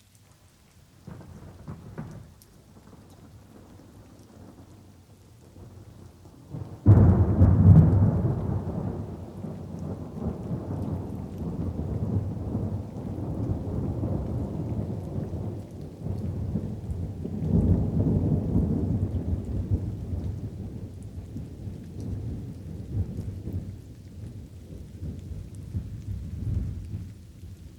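Thunderstorm with light rain: a faint distant rumble about a second in, then a sudden loud thunderclap a quarter of the way through that rolls on as a long low rumble, swelling again past the middle, over a soft steady patter of rain.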